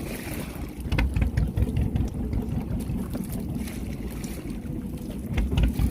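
A small fishing boat's engine running steadily at sea, with a few short knocks.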